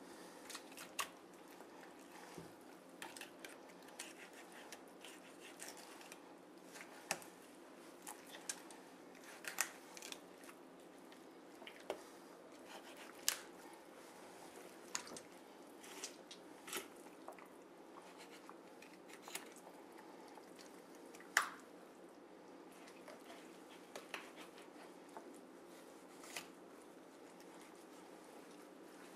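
A knife cutting and scraping along the bones of a raw turkey as it is deboned, giving scattered irregular clicks and soft wet sounds over a faint steady hum, with one sharper click about two-thirds of the way through.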